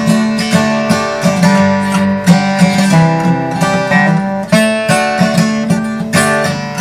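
Martin acoustic guitar played unplugged with its under-saddle pickup switched off: a run of picked notes and strummed chords in a steady rhythm.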